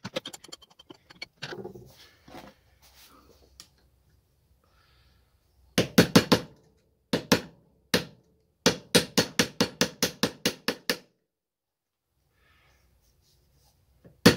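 Loose nested pieces of a machined metal turner's cube clinking against the cage and a metal pick as they are poked and turned: sharp metallic clicks, a cluster of about four around six seconds in, then a rapid run of about ten shortly after.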